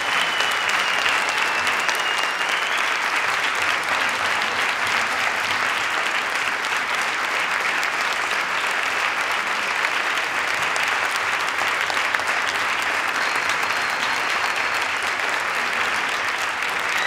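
A large audience applauding, dense steady clapping that keeps up without a break.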